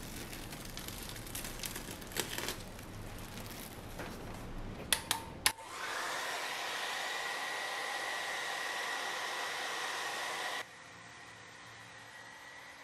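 A few seconds of handling noise and clicks, then a hair dryer switched on about five and a half seconds in, blowing steadily with a high whine. It is used to warm the sides of a cake mould to release the dessert. About ten and a half seconds in it turns suddenly quieter but keeps running.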